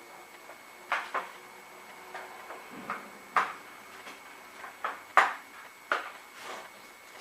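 A screwdriver and hands working the snap latches of an electric lawn mower's housing: a series of separate sharp clicks and knocks, the loudest about five seconds in.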